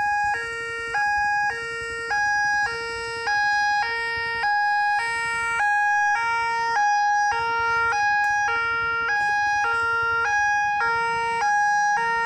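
Railway level-crossing warning alarm ringing: an electronic two-tone signal switching between a lower and a higher tone, each held about half a second, repeating steadily. It is the warning that a train is approaching, with the crossing barrier lowered.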